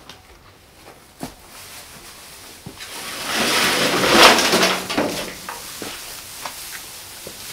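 Armful of dry straw and dried plant stalks rustling as it is gathered and handled, swelling loud for about two seconds in the middle, with a few short knocks before and after.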